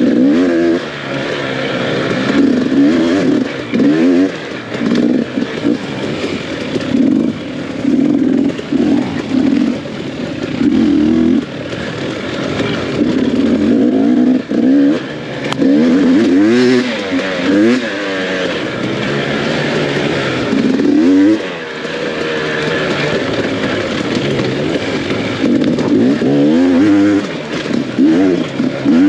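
Dirt bike engine revving up and dropping off again and again as the throttle is worked on and off.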